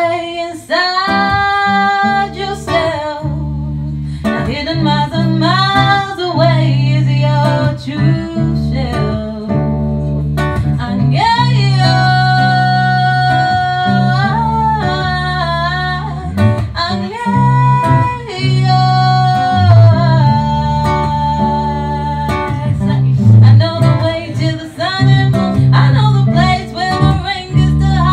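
A woman singing live to guitar accompaniment, folk-fusion style, with several long held notes over steady strummed guitar and a low bass line.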